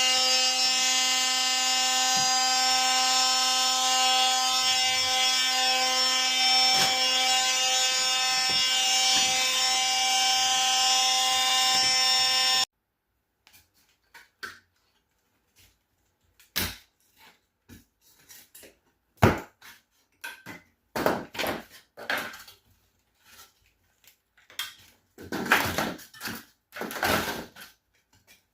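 A power tool's motor runs at a steady pitch for about the first half, then cuts off abruptly. After that come scattered short scrapes and knocks.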